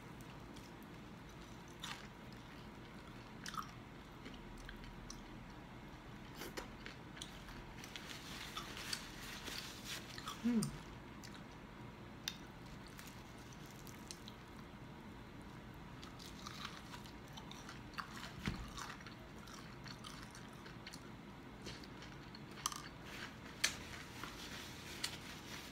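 Close-up chewing and crunching of crispy deep-fried pork hock (lechon kawali), with scattered crackles as the crackling skin and meat are pulled apart by hand.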